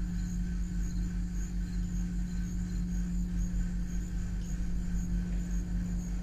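Steady low hum with a faint, wavering high-pitched tone above it.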